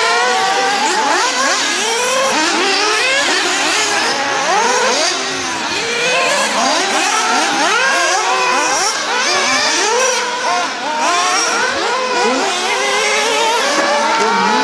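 Several 1:8-scale nitro off-road RC buggies racing, their small two-stroke glow engines revving up and dropping back over and over in overlapping high-pitched whines.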